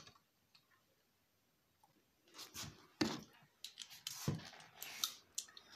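Faint handling noises: a couple of small clicks, then from about two seconds in a run of rustling and short, sharp knocks.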